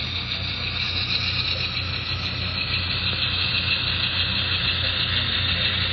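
Model Cotton Belt passenger train running along the layout track: a steady rolling hiss with a low hum under it, slowly growing a little louder.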